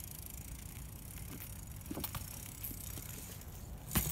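BMX bike rolling on asphalt with a steady low rumble, a light click about two seconds in and one sharp knock near the end.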